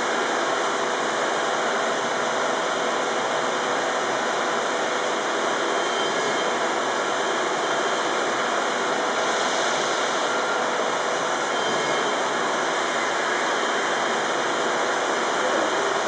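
Steady rushing machinery noise with no clear beat from the plant turning over the 1878 Godard & Massey compound rotative beam engine.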